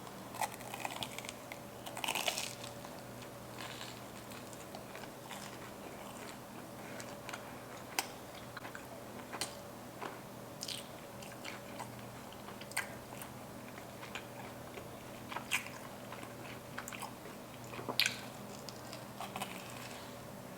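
Close-miked biting and chewing of a reheated Korean cheese corn dog: scattered crunches of the batter crust with wet chewing between, the loudest bites about two seconds in and near the end.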